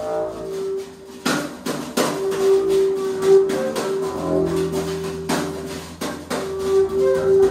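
Free improvised music: an erhu holds a long bowed note, and a contrabass joins beneath it with a low bowed tone about four seconds in. Sharp knocks strike four times across the music.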